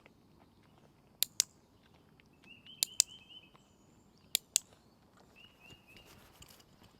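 Hand-held dog-training clicker clicked three times, each a sharp double click, press and release, about a second and a half apart. The puppies are being introduced to it as a marker sound. Birds chirp in short runs between the clicks.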